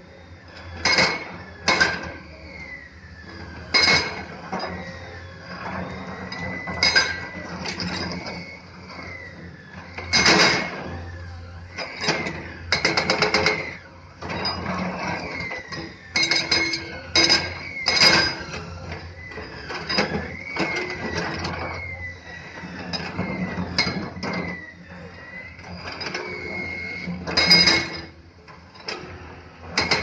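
Komatsu hydraulic excavators working a pile of cut stone blocks: repeated sharp clacks and clatters of stone knocking on stone and on the steel bucket, at irregular intervals, over the steady hum of the diesel engines and a thin whine that rises and falls.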